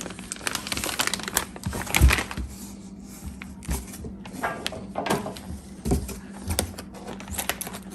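Handling noise as a cap is taken out of its packaging and looked over: irregular light clicks, rustles and taps, with a few soft thumps, about two, five and six seconds in. A faint steady hum runs underneath.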